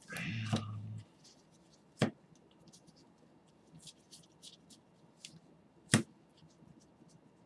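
Gloved hands handling a stack of trading cards, sliding and flicking through them. A brief rustle comes first, then two sharp card snaps about two and six seconds in, with faint ticks of cards brushing in between.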